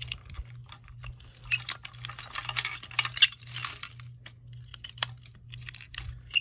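A ring of keys jangling, with sharp metal clicks and clinks, as an SC10 key is handled at a Firecom F943 fire alarm pull station to open and reset it. The jangling comes in two busy stretches from about a second and a half in to nearly four seconds in, with scattered single clicks around them.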